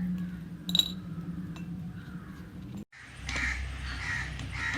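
Crows cawing, a run of short calls about half a second apart starting about three seconds in. Earlier, one sharp glassy clink about a second in, over a low steady hum.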